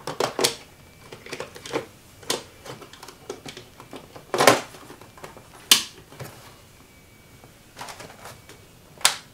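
Plastic clicks and knocks from handling an Ecovacs Deebot X1 Omni robot vacuum: its dust bin is fitted into the top and the robot's body is taken up and turned over. The clicks come irregularly, with two louder knocks near the middle and one near the end.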